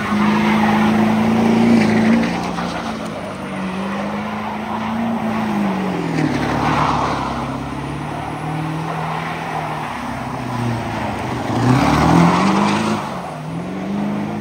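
A car engine revving at a meet, its pitch sagging and climbing again, with tires spinning and skidding twice, about six seconds in and again near the end, as the engine climbs sharply.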